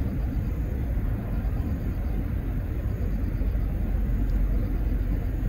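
Steady low rumble of outdoor background noise, even and without distinct events.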